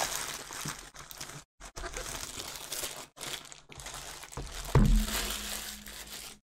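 Plastic poly mailer bag crinkling and rustling as it is pulled off a cardboard box, in stretches with a couple of brief pauses. A single loud thump comes about five seconds in.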